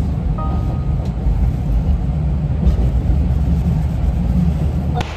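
Steady low rumble of a vehicle in motion, changing abruptly near the end.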